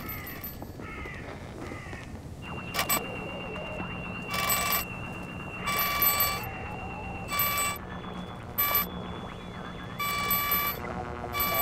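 Bell-like ringing in about seven short bursts of uneven length, roughly one every second or so, over a steady high tone.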